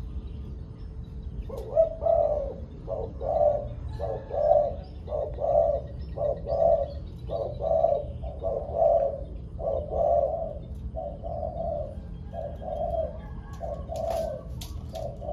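Spotted dove cooing: a long run of short, evenly spaced coos, about two a second, starting about a second and a half in.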